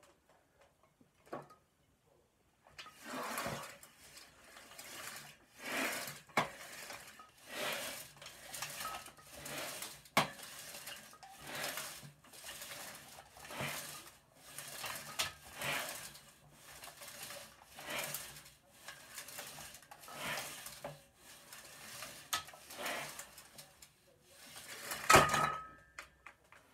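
Plate-loaded barbell in a squat rack: the iron plates rattle and clink in a steady rhythm of about one repetition every two seconds. Near the end the bar clanks back into the rack's metal hooks with a short metallic ring.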